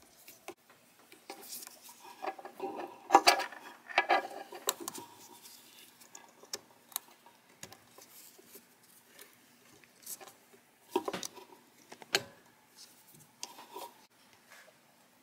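Hands handling and plugging together XT60 battery connectors and their leads: a run of small plastic clicks, knocks and rustling, busiest a few seconds in, with two sharp clicks later on.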